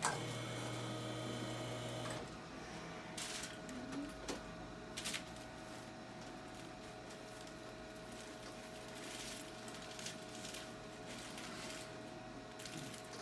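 A small motor hums at a steady pitch for about two seconds and stops abruptly. A few sharp clicks follow between three and five seconds in, over a faint steady room hum.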